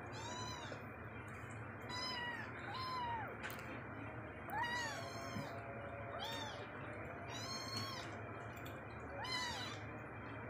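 Young kittens mewing again and again: short, high-pitched calls, each rising then falling in pitch, about one a second, some higher than others as different kittens call.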